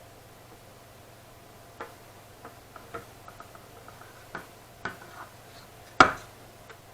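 Scattered small clicks and taps of hands and tools handling a graphics card, with one sharper knock about six seconds in.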